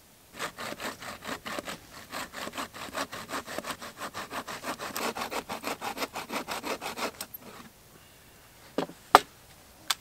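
Small wooden-framed bucksaw cutting through a thin branch laid on a log, in quick back-and-forth strokes about four a second for some seven seconds. Then a few sharp cracks near the end as the piece is broken off.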